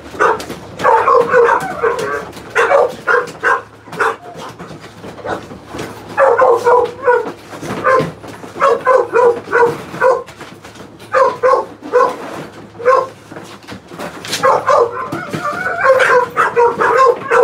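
Dog barking in rapid runs of short barks, several a second, with pauses of a second or two between the runs.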